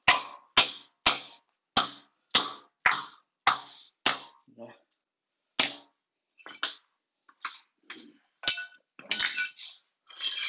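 Hammer blows on the floor by the wall, about two sharp strikes a second with a short metallic ring, working at the old floor edge. The strikes stop about four seconds in, with one more blow a little later and then a few scattered lighter knocks and scrapes.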